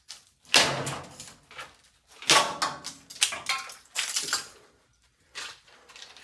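A series of about six hard knocks and clatters, spaced irregularly, as a ToastMaster TM-122CM plastic coffee maker is smashed apart.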